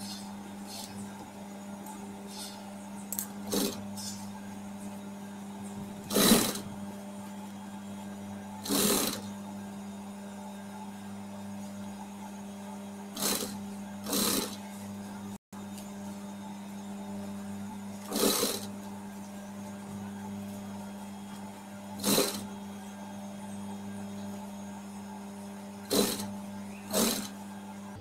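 Juki industrial sewing machine stitching in short bursts of well under a second, about eight of them a few seconds apart, over a steady low hum. The stop-and-go stitching comes from sewing bias tape onto a neckline a little at a time, stopping with the needle down to reposition the tape.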